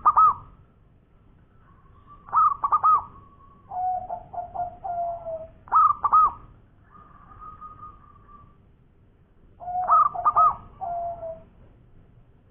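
Zebra dove (perkutut) cooing: quick clusters of rolling coo notes, each followed by a longer, drawn-out purring coo. The phrase is repeated four times with pauses of a few seconds.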